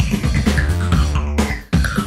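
A song with drums and a strong bass line playing from an iPhone through the car's stereo speakers, with a short break about one and a half seconds in before it carries on.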